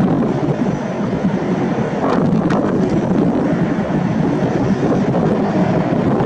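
Steady, loud rumble of jet airliner engines, with wind buffeting the microphone.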